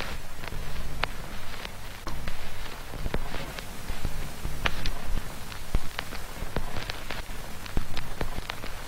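Ambient noise from a Raspberry Pi noise generator: scattered irregular crackles and clicks, rain-like, over a low shifting hum.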